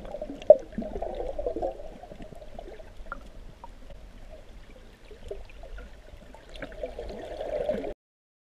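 Muffled underwater water movement and gurgling with scattered small clicks, heard from below the surface, with one sharp click about half a second in. It cuts off suddenly near the end.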